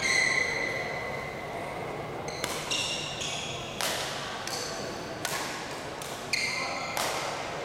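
Court shoes squeaking on an indoor hall floor, a long squeal at the start and shorter ones later, with about five sharp racket hits during a doubles rally.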